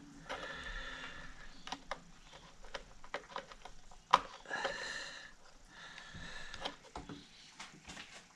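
Small clicks and taps of hands working a small wire connector on a turntable's circuit board, with one sharp click about four seconds in. Three short squeaky pitched sounds come in between the clicks.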